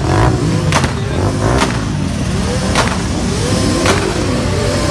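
Several motorcycle and car engines revving together, their pitches rising and falling over one another above a steady engine rumble. Four sharp cracks are spaced roughly a second apart.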